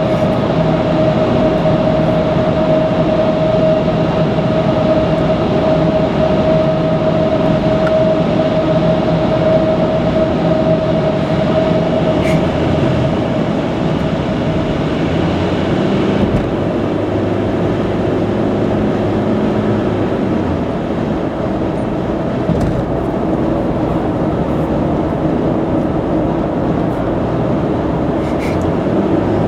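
Car cabin noise at expressway speed: a steady drone of engine and tyre roar with a faint held whine. The engine note shifts about halfway through.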